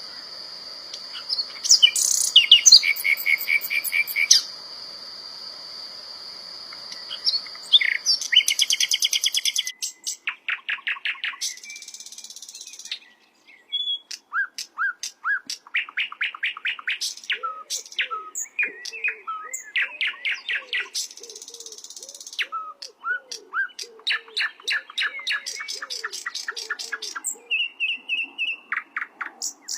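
Sikatan londo singing a varied, fast song of rapid trills and sharp chirps, with a steady high tone held under it for the first nine seconds or so. In the second half a lower note repeats about twice a second beneath the chirping.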